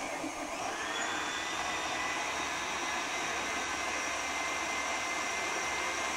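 KitchenAid Artisan stand mixer's motor, set to high speed, driving the 5KSM2FPA food processor attachment and its slicing disc. It spins up in the first second with a slightly rising whine, then runs steadily.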